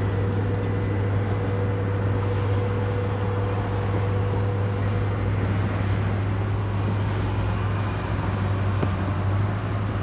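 A steady, constant low hum of an engine running at idle, over a broad outdoor noise.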